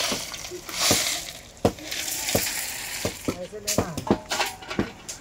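Crushed stone gravel scraped up and poured into a metal pan, a gritty rattling rush twice in the first couple of seconds. Scattered sharp clinks and knocks follow.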